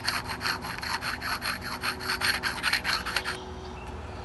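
A flat precision-ground tool room stone rubbed back and forth on the metal mating surface of an electric motor frame, making a quick, even run of scraping strokes. It is honing down raised burrs so the end bells seat flush. The strokes stop about three and a half seconds in.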